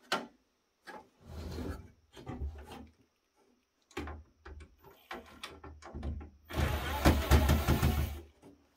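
A few short knocks and rattles of parts being handled on the metal chassis. About six and a half seconds in, a cordless screwdriver runs for under two seconds, backing out a screw from the board.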